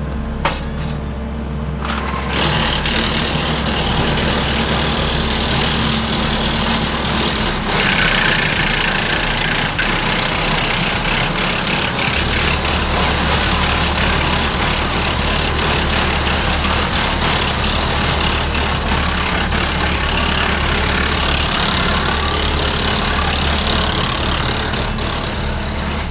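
Tractor engines running steadily under load, driving PTO wood chippers: the WC68 single-flywheel and the TF68 PRO twin-flywheel. About two seconds in, a loud, even rush of the chippers working and blowing chips starts and lasts almost to the end.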